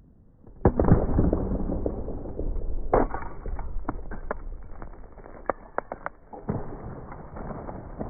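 Baseball bat smashing a ceramic vase: a sudden loud crash with a long tail, a second sharp crack about three seconds in, then scattered clicks of pieces landing, and another crash near the end.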